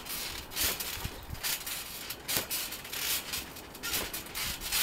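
Trampoline mat and springs creaking and swishing under bouncing, a short burst about once a second.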